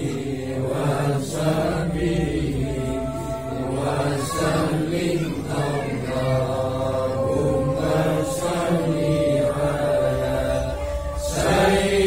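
A group of men chanting tahlil dhikr together, Islamic remembrance recitation sung in long, drawn-out held notes.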